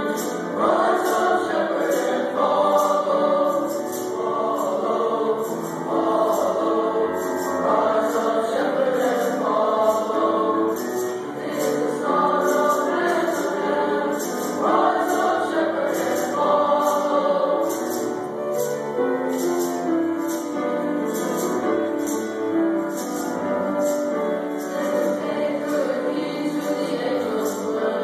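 Junior high school choir singing in several parts, with high percussion keeping a steady beat about twice a second.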